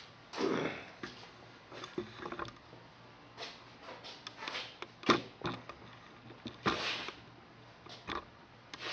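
Scattered handling noises in a small room: rustles, light knocks and a few clicks as things are moved about. The sharpest click comes about five seconds in.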